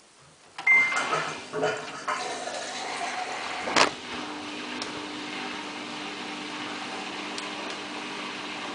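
Samsung WF8804RPA washing machine starting up: a short high beep, a few clunks and one sharp click, then from about four seconds in a steady motor hum as the machine runs.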